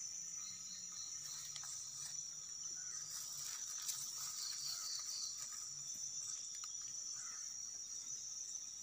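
Steady high-pitched drone of insects, with a few faint clicks about three to four seconds in.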